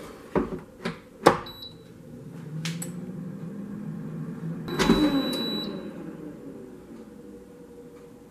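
Instant Vortex Plus air fryer: the basket is slid shut with a few knocks and the unit gives a short beep, then its fan starts and runs with a low hum. About five seconds in, the basket is pulled out with a clunk, a longer beep sounds, and the fan winds down.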